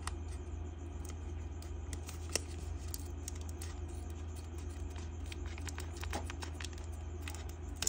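Scissors cutting the top off a foil photo-card pouch: a few faint, sharp snips and clicks, the clearest about two and a half seconds in, over a steady low hum.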